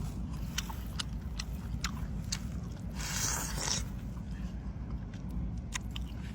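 Close-up chewing of cooked octopus tentacles, which are firm and chewy, with scattered wet clicks and mouth smacks and a short hiss about three seconds in.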